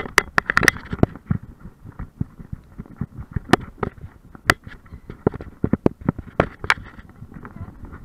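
Irregular sharp knocks and thumps from a camera strapped to a dog, jolted and rattled in its mount as the dog moves, thickest in the first second and then scattered.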